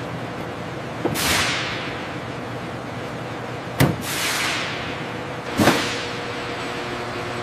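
Three whooshes, each opening with a sharp hit and followed by a hiss that falls in pitch and fades over about a second. They come about a second in, near the middle and a little past two-thirds, over a steady low hum.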